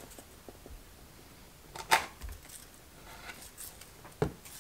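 Quiet handling of a foam board box section, with faint ticks and two sharp taps, one about two seconds in and one near the end.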